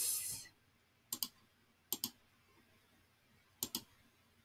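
Three computer mouse clicks, each a quick pair of sharp ticks from the button going down and coming up: about a second in, at about two seconds, and again near the end.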